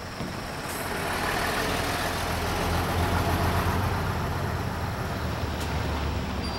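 Hino bus's diesel engine running as the bus pulls away from the stop and passes close by, its low rumble growing louder about two seconds in.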